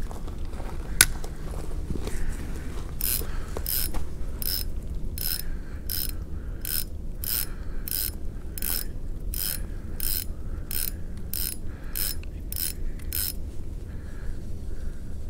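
Spinning reel cranked on a retrieve: its gears click regularly, about twice a second, and stop near the end. A single sharp click comes about a second in, and a low steady rumble runs underneath.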